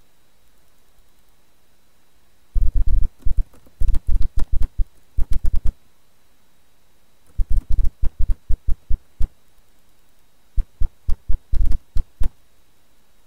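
Three quick runs of sharp tapping clicks, each lasting one to three seconds, with short gaps between them: a sound effect laid over a hand-drawn logo animation.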